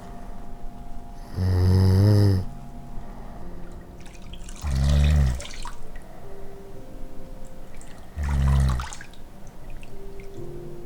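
A person asleep and snoring: three long, low snores about three and a half seconds apart, with the breath audible in the second and third.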